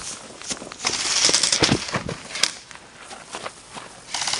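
Airsoft rifles firing: a dense flurry of sharp pops and clicks between about one and two and a half seconds in, with a few more near the end.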